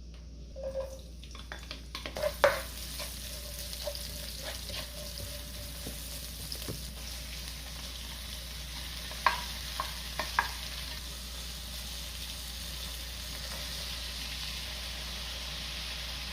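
Chopped ingredients for kimchi fried rice sizzling and being stir-fried in oil in a frying pan, the sizzle building about two seconds in and then steady. A spatula knocks against the pan several times near the start and in a quick cluster of sharp clicks about nine to ten seconds in.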